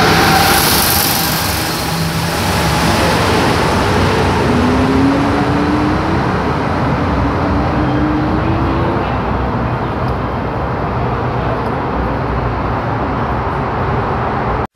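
Rubber-tyred Santiago Metro train pulling out of a station: the rush of the last cars going by, then the train's rumble carrying on as it leaves, with a faint motor whine rising in pitch about five seconds in.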